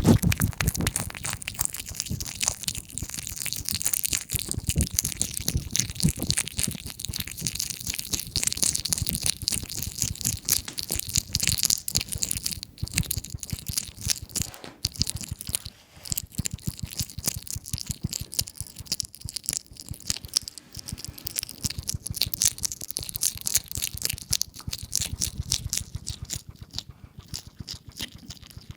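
A European hedgehog chewing and chomping, a dense run of rapid crunching, smacking clicks that thins out and grows quieter near the end.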